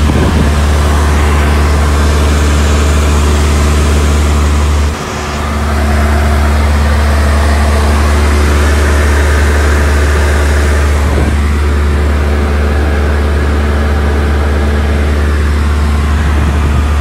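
Steady, loud engine drone heard from inside a cabin: a constant low hum with a rushing noise over it, broken by a short dip about five seconds in.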